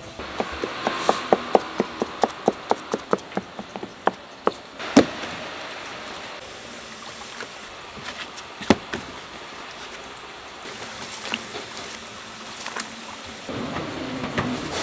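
Raw dough pieces set down on a floured wooden tray in quick succession, a run of light taps about five a second, followed by two louder single knocks. A steady hiss runs underneath.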